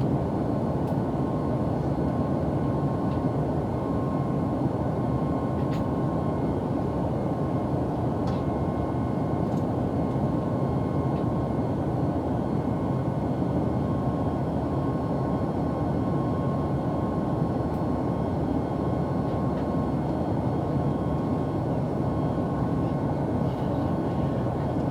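Steady in-flight cabin noise of an airliner, the drone of its engines and rushing air heard from inside the passenger cabin, with a faint steady whine and an occasional faint tick.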